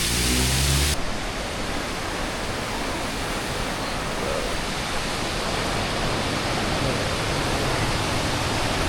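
Steady rushing water of a large waterfall, an even noise with no rhythm. It takes over abruptly about a second in, cutting off a brief low hum.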